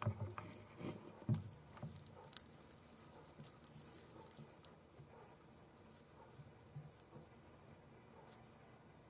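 A few soft knocks and rustles in the first two seconds, then a faint, evenly repeating high-pitched chirp about three times a second.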